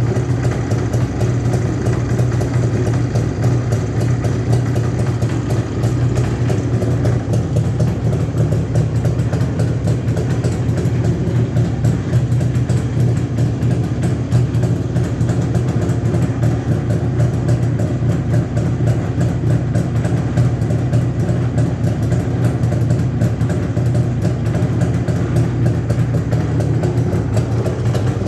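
Two-cylinder motorcycle engine running steadily after a rebuild with new small-end bushings and tighter-fitting piston pins; only the engine's own sounds, with no piston-pin knock.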